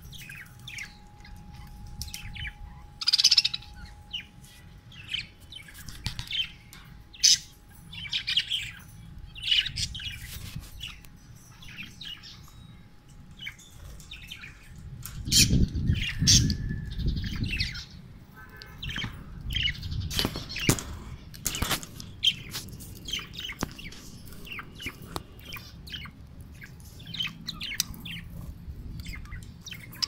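Caged budgerigars chirping and chattering in quick, short, high calls throughout. Around the middle there is a stretch of low rumbling, and shortly after it a few sharp clicks.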